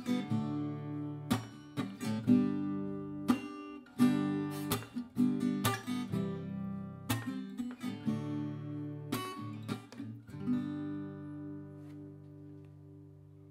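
Acoustic guitar strumming chords, then a last chord struck about ten seconds in and left to ring and fade away, ending the song.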